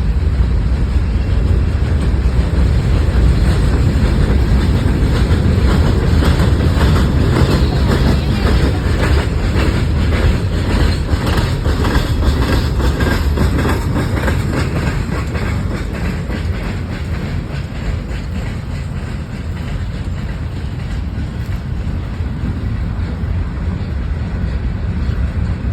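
Freight train cars, including grain hoppers, rolling past close by: a steady low rumble with rapid clicking of wheels over the rail joints, clearest in the first half and easing a little later on.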